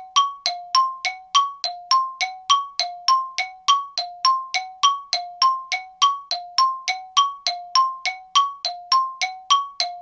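A looped two-note chime: evenly spaced bell-like dings, a little over two a second, alternating between a lower and a higher pitch, each ringing briefly. The beat is too even, the pitches too fixed and the room sound too completely gone for this to be the spoon on the bowls.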